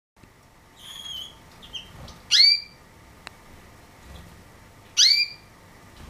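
Domestic canary calling: a few soft chirps about a second in, then two loud upward-sweeping call notes about two and a half seconds apart.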